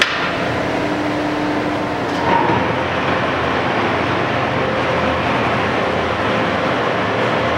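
Monarch 20-CM heavy-pattern engine lathe running with its spindle turning: a steady mechanical whir from the geared headstock and main drive, with a light knock about two seconds in.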